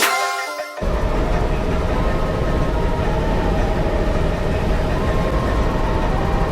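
Music cuts off under a second in, giving way to the steady drone of a helicopter heard from inside the cabin: rotor and engine noise, heavy in the lows, with a faint steady whine.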